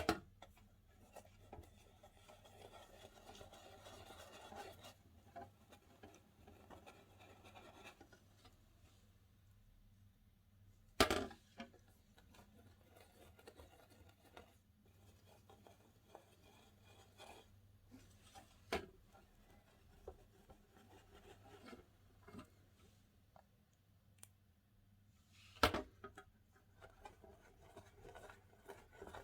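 Hands working slime: soft sticky rubbing and crackling with many small ticks, and a few sharp louder pops, two of them well apart in the middle and near the end.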